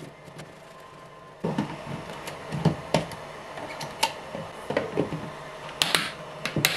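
Plastic clicks, knocks and rattles of a filament spool and a plastic drying-box spool holder being handled, starting about a second and a half in, with a few sharp clicks near the end as the holder's cover is taken off.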